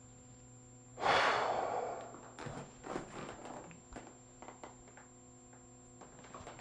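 A man forcefully blows all the air out of his lungs through the mouth in one long exhale, starting about a second in and fading over about a second: emptying the lungs before drawing the navel to the spine in a breathing exercise. A few faint rustles follow.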